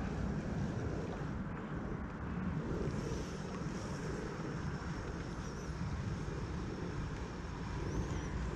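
Steady low rumble of outdoor background noise, with a few faint high chirps in the second half.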